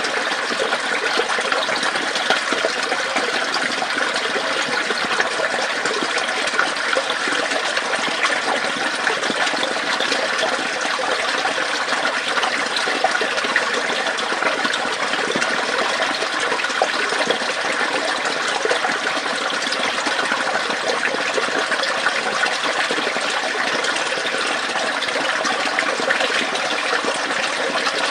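A small stream of water running through a tube or pipe: a steady, busy gurgling and trickling that neither starts nor stops.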